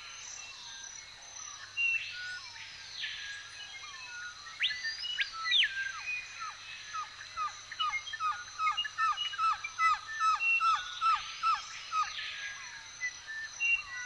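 Tropical forest daytime ambience: many birds call over a steady high-pitched insect drone. Several longer calls rise and fall. Midway through, one bird gives a run of short downward-slurred whistles, two or three a second, for about five seconds.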